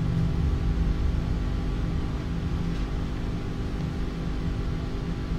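Steady low electrical-sounding hum with a layer of hiss, unchanging throughout.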